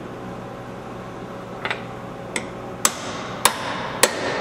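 Ball-peen hammer striking a steel needle-bearing cap of a universal joint, driving it into the axle yoke bore: five sharp metallic hits about two a second, beginning about one and a half seconds in and growing harder.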